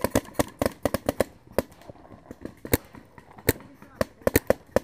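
Paintball markers firing: sharp pops in quick, uneven strings of several shots a second, with a pause of about a second midway.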